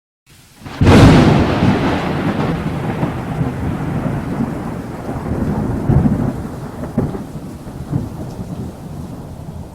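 Thunder: a sharp crack about a second in, then a long rolling rumble with further rolls, slowly fading.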